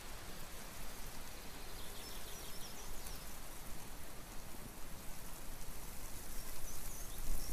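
Outdoor nature ambience: a steady rushing noise with a low rumble underneath and a few short high chirps, swelling near the end.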